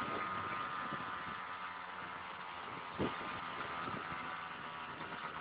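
Faint, steady hum and hiss of a car's engine running, with a single click about three seconds in.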